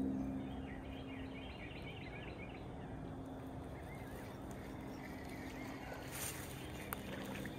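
Faint outdoor ambience with distant birds chirping a quick run of notes in the first few seconds, over a low steady hum.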